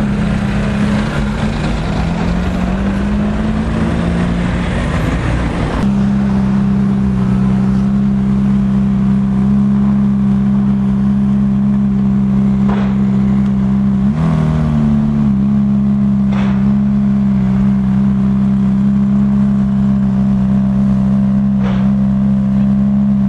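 Ferrari F430's V8 engine running at low revs, its pitch wandering up and down, then settling from about six seconds in to a steady idle, with one short blip of revs a little past the middle.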